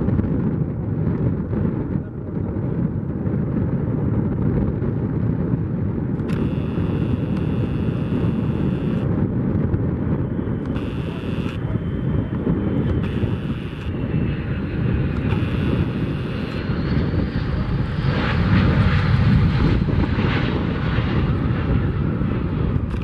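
Jet engines of a Boeing 757-200, Pratt & Whitney PW2000 turbofans, whining on landing approach. The high engine whine comes and goes over a heavy rumble of wind buffeting the microphone, and the engine noise swells about two-thirds of the way through.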